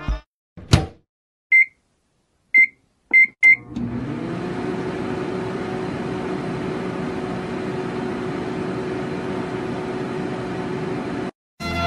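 Microwave oven: a click, four short keypad beeps, then the oven starts and runs with a steady hum that rises briefly in pitch as it starts up, and it cuts off suddenly near the end.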